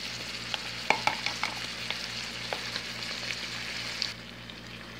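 Pork pieces and onions sizzling in a frying pan, with frequent small pops and crackles as barbecue sauce goes in; the sizzle goes quieter about four seconds in.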